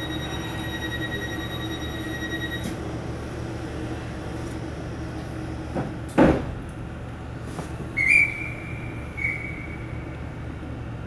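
Interior of a Class 455 electric multiple unit standing at the platform, its equipment giving a steady low hum. A high, pulsing beep-like tone runs for the first two and a half seconds, and a single loud thud comes about six seconds in. A high whistle-like tone sounds around eight seconds in, breaking off briefly before it ends.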